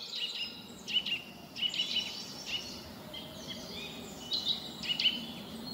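Birds chirping in woodland: clusters of short, high chirps that recur roughly once a second over a faint background hiss.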